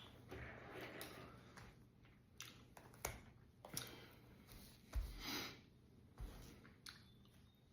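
Faint chewing and wet mouth clicks and smacks from someone eating a soft, chewy chamoy candy, with a couple of soft low thumps about five and six seconds in.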